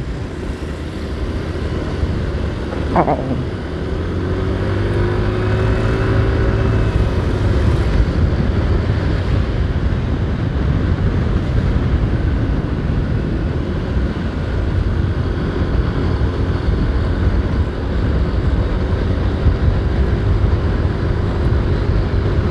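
A motorcycle being ridden in city traffic: a steady rumble and rushing road noise with faint engine tones. There is a brief falling tone about three seconds in.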